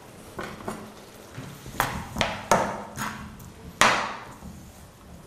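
Metal ladle knocking and clinking against a saucepan and frying pan while sauce is ladled across: about seven sharp knocks with short rings, the loudest a little before the end.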